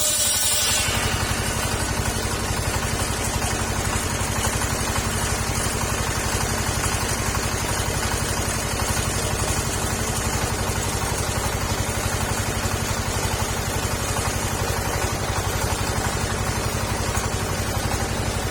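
Petrol engine driving a circular saw bench runs at a steady speed, the blade spinning free between cuts. A high hiss of the blade cutting sengon wood dies away about a second in.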